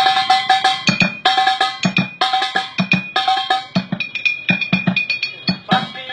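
Instrumental break in a song: a quick, steady percussion beat with a melody of short held notes played over it.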